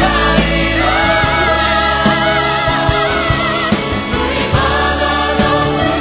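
A choir singing a Korean worship song with instrumental accompaniment, its voices holding long notes with vibrato over a sustained bass line.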